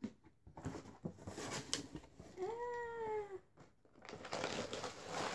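A domestic cat meows once near the middle, a drawn-out call of about a second that rises then falls in pitch. Around it, cardboard box flaps and plastic packaging rustle and crinkle, more steadily toward the end.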